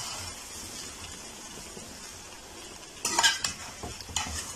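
Egg macaroni sizzling in a metal pan while a metal spatula stirs it, a steady hiss with clattering scrapes of the spatula against the pan about three seconds in and again near the end.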